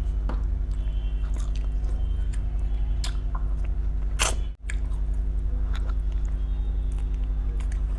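Close-miked chewing and crunching of food, with scattered sharp clicks, over a steady low electrical hum. The sound drops out briefly about halfway through.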